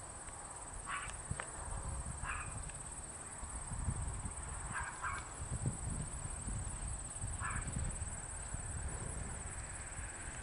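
Horse's hooves thudding on grass at a canter, with four short higher-pitched calls spaced over the first eight seconds.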